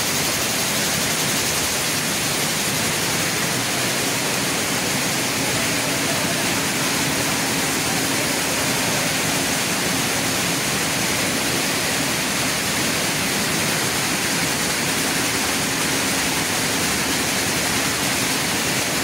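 Many weaving looms running at once in a large weaving shed, blending into a loud, steady, dense mechanical din.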